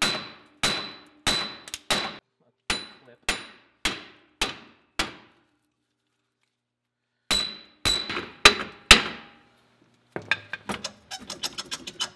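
Hammer blows on the seized rear wheel bearing hub of a Subaru Legacy, struck to break it loose: a run of sharp metallic strikes with a ringing tone, about three every two seconds, then a pause of about two seconds and four more blows. Near the end come light clinks and rattles as the loosened hub is worked off by hand.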